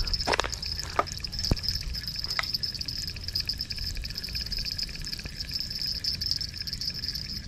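Insects chirring steadily in one high, fast-pulsing band. A few sharp clicks come in the first couple of seconds.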